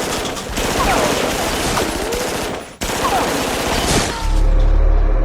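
Rapid machine-gun fire, a dense continuous rattle of shots with a brief break a little before three seconds in. A low steady hum comes in near the end.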